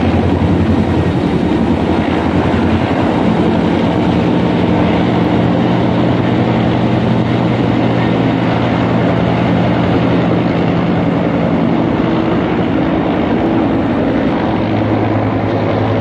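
Helicopter rotor chopping steadily while it hovers to fill a slung Bambi bucket from the lake, then lifts away. Its tone shifts about three-quarters of the way in as it pulls off with the load.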